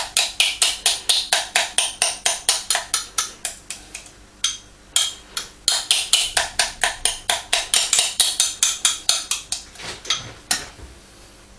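A utensil knocking rapidly against a bowl, about four or five strikes a second, as milk-and-vinegar curds (casein plastic) are mashed smooth; a short pause a little over four seconds in, and the knocking stops near the end.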